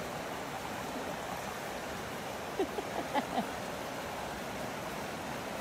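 Dog digging fast in loose soil with its front paws, a steady scrabbling, rushing noise of dirt being scraped and thrown. A few short whines about halfway through.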